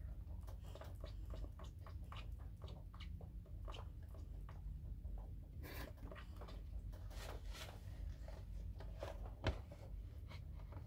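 Faint, scattered small clicks and scratches from Netherland Dwarf rabbit kits shuffling and walking about, with one sharper knock about nine and a half seconds in.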